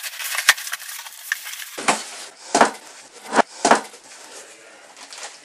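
Packaging being handled while a snowskate is unboxed: rustling and scraping, then a few sharp knocks, the loudest about two and a half and three and a half seconds in.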